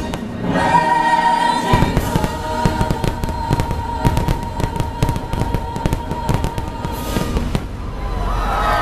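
Fireworks bursting and crackling in rapid succession over music with a long held note; the bangs start about two seconds in.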